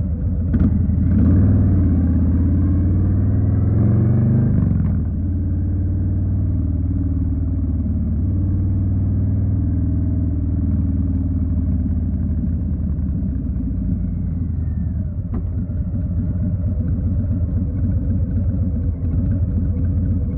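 2020 Harley-Davidson Street Bob's Milwaukee-Eight 107 V-twin under way. It revs up with rising pitch for the first few seconds, drops about five seconds in, then settles into a steady, low, deep rumble.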